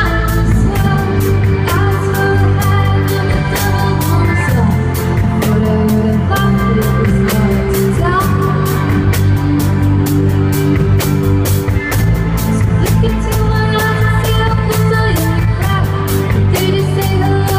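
Live indie rock band playing a song: a woman singing over guitars, bass and drums, with a steady drum beat.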